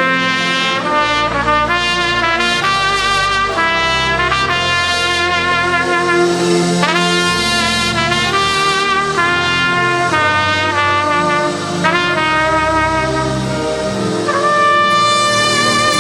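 A trumpet playing a slow worship melody of held notes with vibrato, over sustained low chords from the band.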